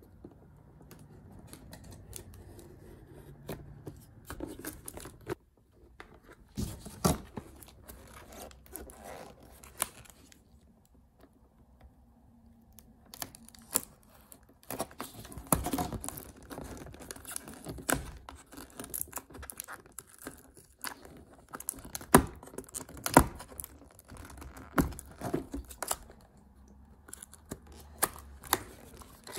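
Clear tape seal stickers on a white cardboard keyboard box being slit with a small knife and peeled, with tearing, scraping and sharp clicks of cardboard being handled. The clicks come thicker and louder in the second half.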